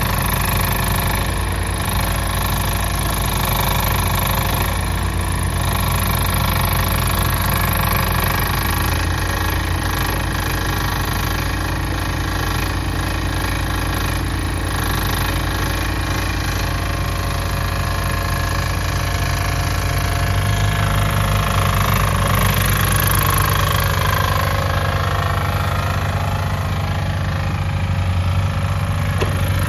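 One-ton mini excavator's engine running steadily while the machine works its tracks and boom over mounds of earth. The engine note changes about twenty seconds in.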